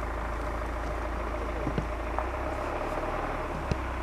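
Steady low rumbling outdoor background noise with a few faint clicks.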